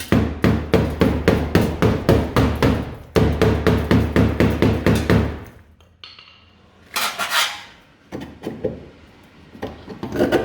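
Rapid hammer blows on the steel rear wheel arch of a 1960 Ford Consul, about four to five a second in two runs, knocking out old filler. They are followed by a brief scraping clatter and a few lighter knocks near the end.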